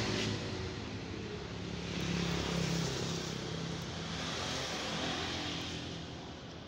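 A vehicle engine running with a steady drone that fades away near the end.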